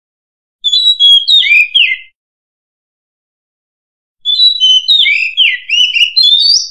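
Oriental magpie-robin singing: two short phrases of clear whistled notes that slide up and down, the first a little under a second in, the second starting about four seconds in and running on longer.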